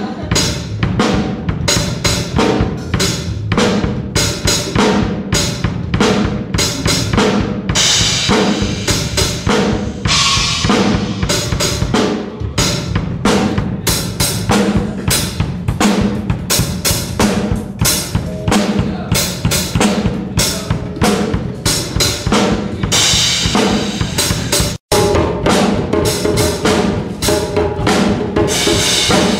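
Acoustic drum kit played by a small child: a steady stream of bass drum, snare and tom hits with cymbal crashes now and then. The sound cuts out for a split second near the end.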